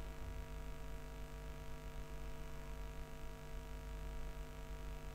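Steady electrical mains hum with a low rumble underneath, picked up by the recording chain.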